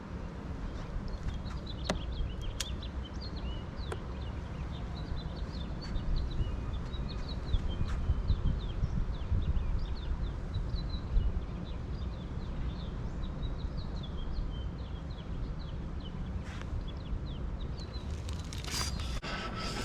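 Small birds chirping in quick runs of short high notes over a steady low rumble, with a few sharp clicks near the end.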